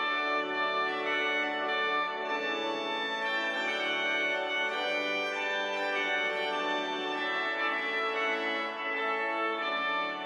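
Organ playing slow, sustained chords as processional music.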